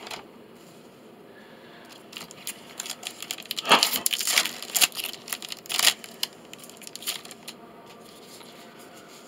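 Foil-wrapped Magic: The Gathering booster pack being torn open and crinkled by hand, a run of sharp crackling tears about three to six seconds in.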